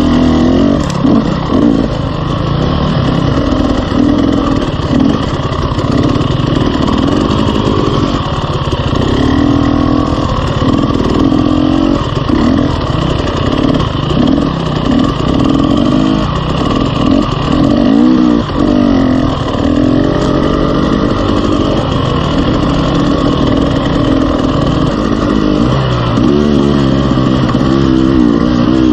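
KTM 300 two-stroke dirt bike engine running at low trail speed, its revs rising and falling continually with the throttle and climbing again near the end.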